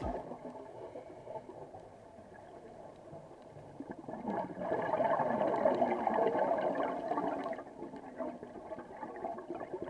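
Underwater sound picked up by an action camera in its housing: the gurgling, crackling rush of a scuba diver's exhaled bubbles, swelling loudest from about four and a half to seven and a half seconds in.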